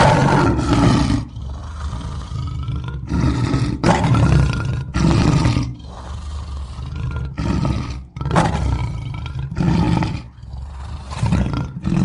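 Lion roaring: a run of loud roars and shorter grunts, each lasting up to about a second, with short pauses between them.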